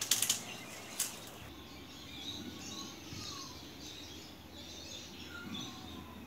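Two short rasping yanks on a chainsaw's starter cord, about a second apart, with birds chirping in the background.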